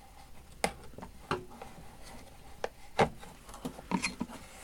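Light clicks and knocks of hand tools being handled and set down in a tool-box drawer, about seven separate taps, the sharpest about three seconds in.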